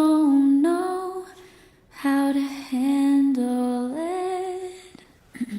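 A woman's voice singing long held, wordless notes in two slow phrases, with a short break about two seconds in.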